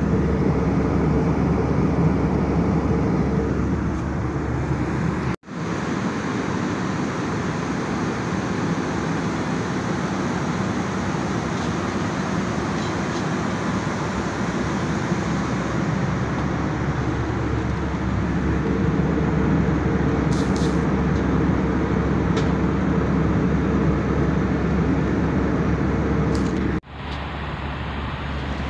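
Steady drone of an airliner's passenger cabin in flight, the engine and airflow noise with a low hum beneath it. It breaks off for a moment twice, about five seconds in and near the end.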